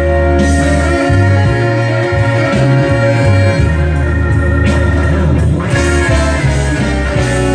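Instrumental break of a slow blues song: sustained organ chords over a moving bass line.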